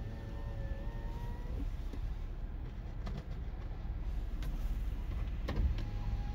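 Ice cubes being chewed and crunched, over a steady low rumble of a car's cabin with the engine running. A faint wavering tone sounds at the start and again near the end.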